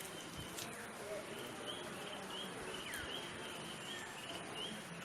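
Outdoor rural ambience: a short high chirp repeating about three times a second over a soft steady hiss, with two brief falling whistles, one near the start and one about three seconds in.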